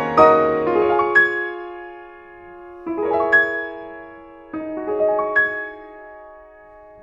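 Soft piano music: sparse notes and chords struck in three small groups, each left to ring and fade.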